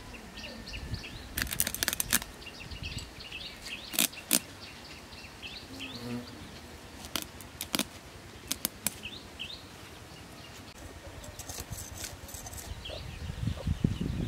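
Scales being scraped off a bata fish against the blade of a bonti, sharp clicks coming singly and in quick little clusters at irregular intervals.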